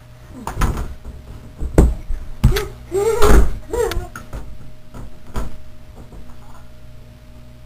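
A run of thumps and knocks, the loudest a little past three seconds in, with a few short wordless voice sounds that rise and fall around the middle.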